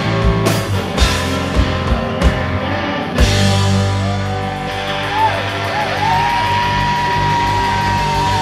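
Blues-rock band playing live: drum hits over bass and guitar, then about three seconds in the full band comes in together, with a long high note that bends at first and then holds.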